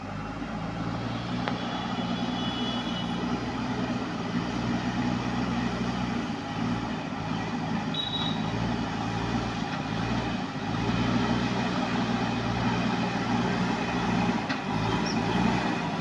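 JCB 3DX backhoe loader's four-cylinder diesel engine running under load as the machine pushes soil with its front bucket, a steady engine note that grows louder as the machine comes closer.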